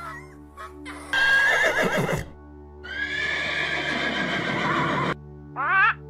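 Donkey braying: two long, wavering calls, the second about two seconds long, over background music with steady held notes.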